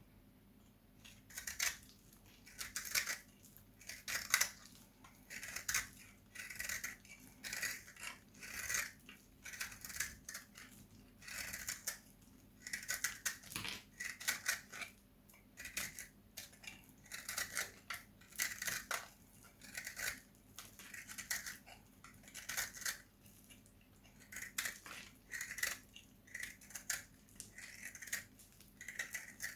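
A blade slicing through dry soap in repeated crisp, crackly strokes, about one a second.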